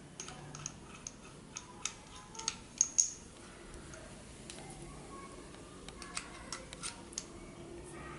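Metal parts of an Aqualung Titan regulator first stage being handled and screwed together by hand: scattered light clicks and taps. The loudest pair comes a little under three seconds in, and another run of clicks comes around six to seven seconds in.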